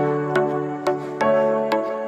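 Background music: an instrumental stretch of a pop song, with held notes and a beat about twice a second.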